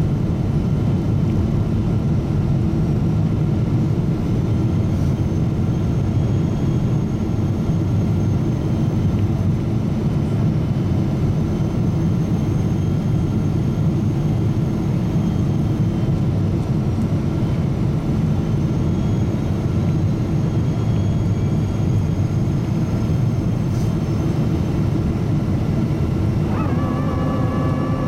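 Cabin noise inside a Boeing 777-200ER airliner in descent: a steady, dense rumble of engine and airflow. About a second and a half before the end, a steady whine of several tones sets in.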